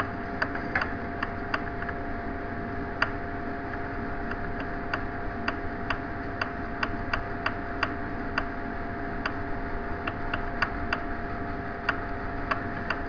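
Computer mouse clicking in irregular single clicks, about one or two a second, as regions of a drawing are picked for hatching, over a steady electrical hum.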